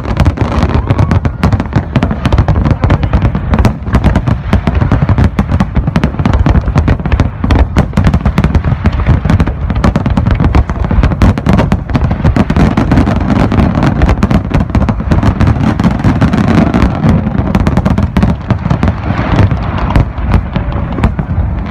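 Large aerial fireworks display: shells bursting in a rapid, continuous barrage of overlapping bangs.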